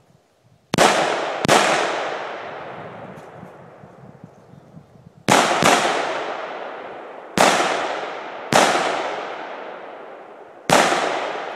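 AR-15 rifle firing seven single shots at an uneven pace: a pair about a second in, a pair a little under halfway, then three more spread out near the end. Each crack is followed by a long echoing tail that dies away over a second or two.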